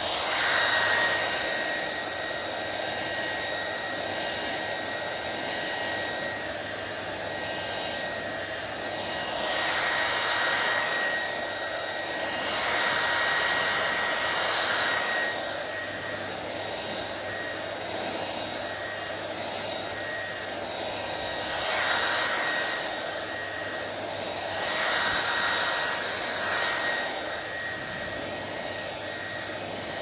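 Handheld hair dryer blowing steadily on wet hair, with a thin steady whine over the rush of air. The airflow noise swells and eases every few seconds as the dryer is moved about.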